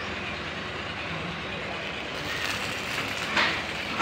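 Steady workshop background noise, with a few sharp knocks starting near the end.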